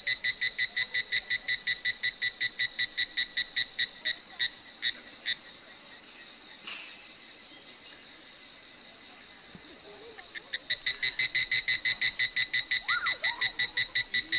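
A frog croaking in a rapid pulsed series, about five croaks a second, over the steady high hiss of insects. The croaking stops about five seconds in and starts again near the end. A single sharp click falls in the pause.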